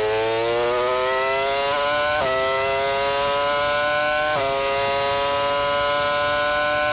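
Formula One car's 3.0-litre Mercedes V10 engine heard onboard, accelerating hard through the gears. Its high pitch climbs steadily and drops sharply at each of two upshifts, about two seconds and about four and a half seconds in.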